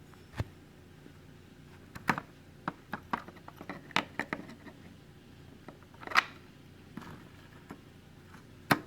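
Light clicks and small clatter of a plastic gear-shifter parking-mechanism piece, its metal spring and key-ring loop being handled and latched together. The clicks are scattered and uneven, with a sharper click about six seconds in and another near the end.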